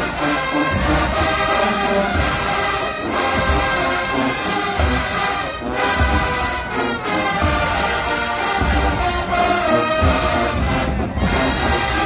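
HBCU marching band playing loud brass over a steady bass-drum beat.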